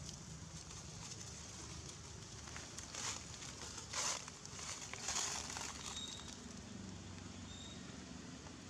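Dry leaf litter crackling and rustling in three short bursts, about three, four and five seconds in, as the macaques move over it. Faint bird chirps sound in the background.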